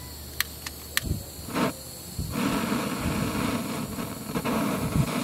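A few sharp clicks, then about two seconds in a handheld gas torch lights and its flame hisses steadily, ready to heat a copper water pipe for brazing.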